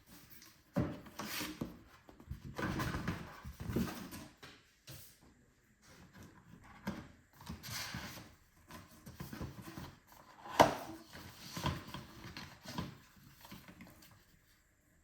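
A box being opened and its packaging handled: irregular rubbing, sliding and rustling, broken by several knocks, the sharpest one about ten and a half seconds in.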